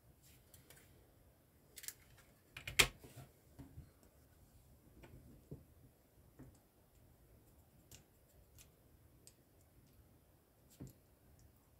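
Plastic LEGO pieces clicking and tapping as they are handled and pressed together, with a sharp cluster of clicks a little under three seconds in and scattered softer clicks after.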